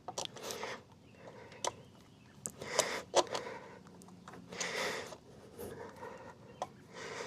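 Light hand-work sounds: scattered sharp clicks and short rustling, breathy noise, with no steady mechanical sound.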